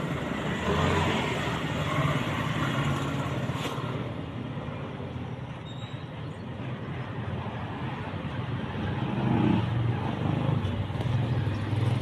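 Passing road traffic: motor vehicle engines, motorcycles and trucks among them, running in a steady rumble that swells louder about three-quarters of the way in.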